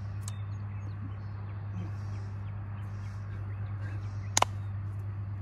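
A steady low hum under faint outdoor background, with one sharp click about four seconds in.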